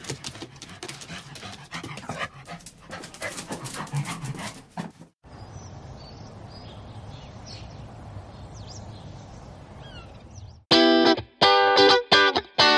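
A dog's sounds with dense, irregular crackling and scuffling for the first few seconds, then faint high whines over a low steady hum. Electric guitar music with a pulsing beat comes in near the end.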